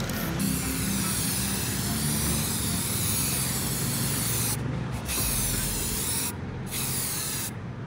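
Aerosol spray-paint can hissing as paint is sprayed onto a bicycle frame, in long bursts broken by three short pauses in the second half.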